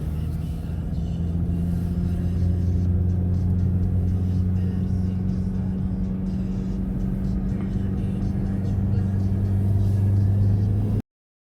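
A vehicle engine running steadily with a low, even hum. It stops abruptly near the end.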